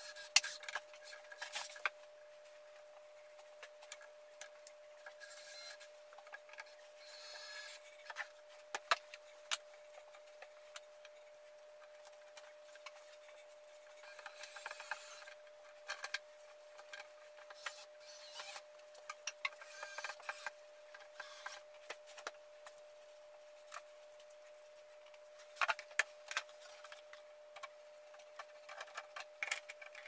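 Scattered clicks, knocks and rubbing of hands-on installation work with a cordless drill and cabinet fittings, with a few short noisy bursts about a second long. A faint steady hum runs underneath.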